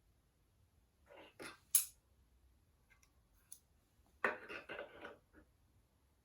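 Metal parts and tools being handled while fitting a flywheel onto an engine's crankshaft. There are short scrapes and a sharp clink about two seconds in, then a brief burst of rough metallic scraping or rattling about four seconds in.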